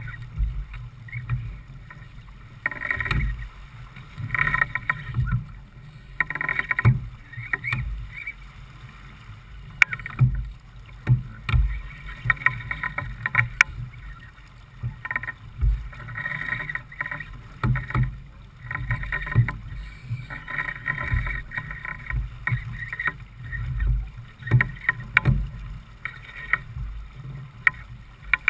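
Water rushing and splashing along the hull of a J/24 keelboat sailing under spinnaker, rising and falling in irregular surges, with some low wind rumble on the microphone.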